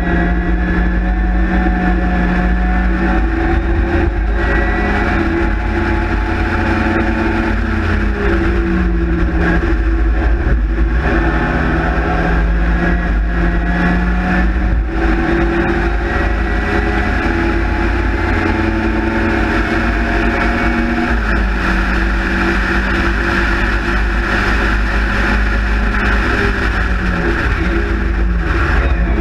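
Sprite/Midget race car's engine at racing revs, heard from inside the open cockpit: the pitch holds, drops and climbs again several times as the driver changes gear and lifts for corners, over a steady rush of wind and road noise.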